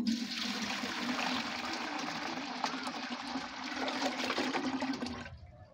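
Aquarium water being poured out in a steady gush, which stops abruptly about five seconds in.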